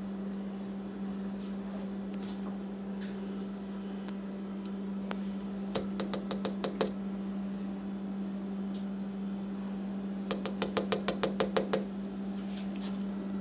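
A dog pawing and scratching at a closed door from the other side: two runs of rapid light knocks, about eight a second, the second run longer. A steady low hum runs underneath.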